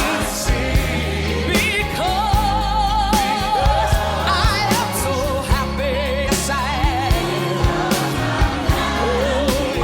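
Live gospel music: held sung notes with a wide vibrato over a band with bass and regular drum beats, with a choir behind.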